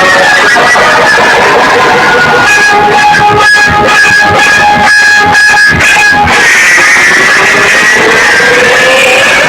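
Music played at very high volume through a competition DJ sound system's loudspeakers, a twangy guitar-like melody over it. A hard beat comes in about two and a half seconds in and drops out around six seconds.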